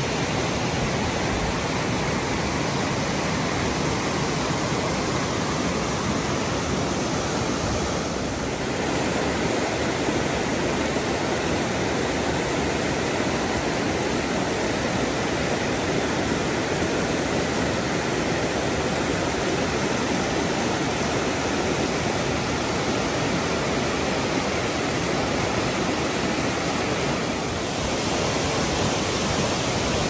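Waterfall and the rocky creek below it, a steady, even rushing of falling and tumbling water.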